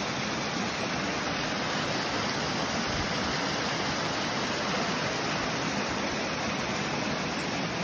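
Small mountain waterfall cascading over rocks into a stream: a steady rush of falling water.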